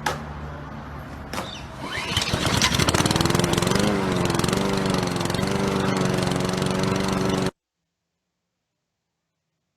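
Lawn mower engine sputtering as it starts, then catching and running steadily with a slightly wavering pitch. It cuts off suddenly about seven and a half seconds in.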